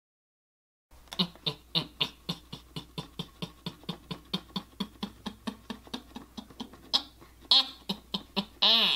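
A creepy laugh voiced for the ventriloquist dummy: quick, even 'ha-ha-ha' pulses, about four or five a second, starting about a second in, then a few longer wavering notes near the end.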